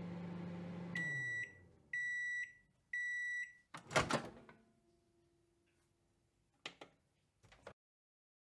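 Microwave oven finishing a cycle: the running hum winds down, three high beeps about a second apart signal the end of cooking, then the door clunks open, followed by two small clicks.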